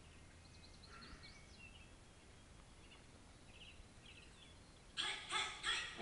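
Faint, scattered bird chirps over a low background hiss from the VHS soundtrack. About five seconds in, rock music comes in suddenly with three loud accented hits.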